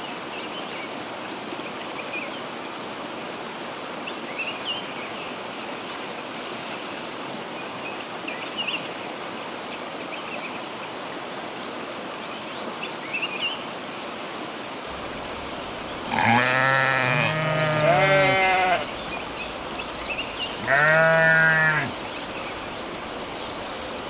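Sheep bleating: two long wavering baas back to back about two-thirds of the way in, then one more a couple of seconds later, over a steady outdoor background hiss.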